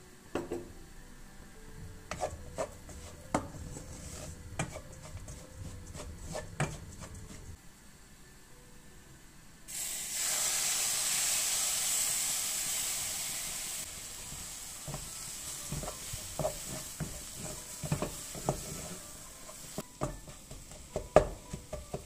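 Wooden spatula stirring and tapping minced lamb and ground walnuts in a nonstick frying pan, with scattered scrapes and knocks. About ten seconds in, hot liquid fat poured into the pan sets off a sudden loud sizzle that eases off over a few seconds, and then the stirring resumes.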